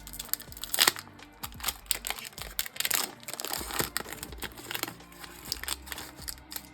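Trading cards being handled and flipped in the hand: crinkly rustling and sharp card flicks, the loudest just before a second in.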